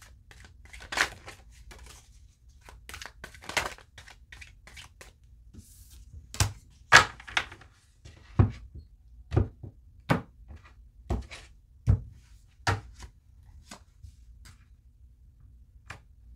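A deck of tarot cards being handled on a table: papery card rustling at first, then a run of about eight sharp knocks of cards on the tabletop, roughly one a second.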